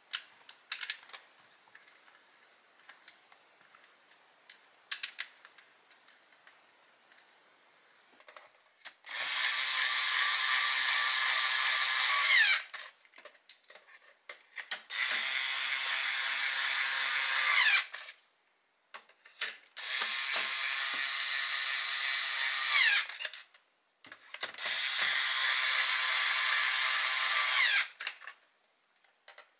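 A Dyson V12 Slim Detect cordless vacuum's motor is switched on and run four times for a few seconds each. Each run is a steady high whine that falls in pitch as the motor spins down, consistent with test runs after the repair. A few light clicks come before the first run.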